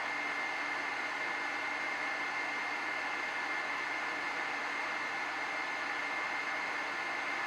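Cooling fan running steadily: an even whooshing noise with a faint high whine.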